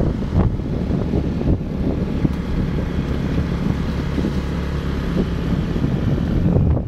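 A moving vehicle's engine and road noise, a steady rumble with wind buffeting the microphone.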